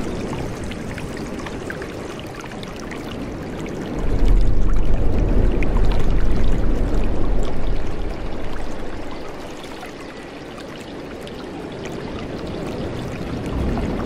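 A forest stream flowing and splashing steadily, with a deep rumble that swells louder from about four to eight seconds in.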